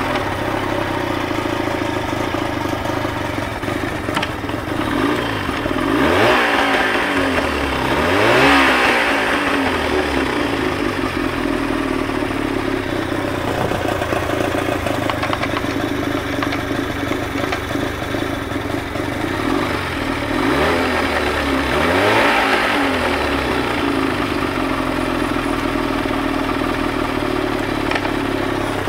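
OMC 48 Special two-stroke outboard running with its cowling off, idling steadily and revved up and back down briefly three times. It has been repaired and is running well.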